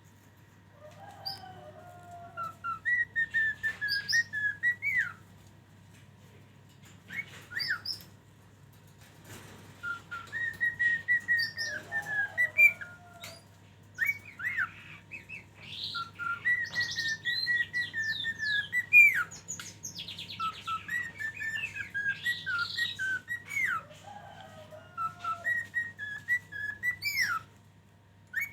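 A caged songbird whistling in repeated phrases of clear notes mixed with quick chirps, each phrase a few seconds long with short pauses between, over a faint steady hum.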